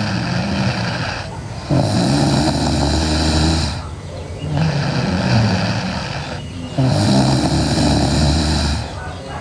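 A sleeping person snoring loudly: low, rasping snores come one after another, each about two seconds long, with a short break between them roughly every two and a half seconds.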